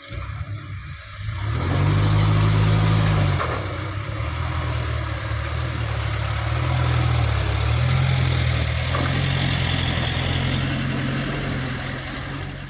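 Heavy diesel engine revving: it picks up about a second and a half in, eases back, then rises again and holds at higher revs.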